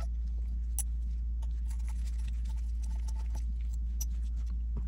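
A few faint, light metal clicks and ticks from a screwdriver working the side-plate screws of a Taurus 856 revolver, heard over a steady low hum.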